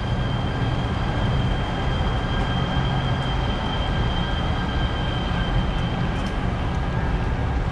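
Metro light rail train pulling out of an elevated station overhead: a steady rumble with a high, level whine.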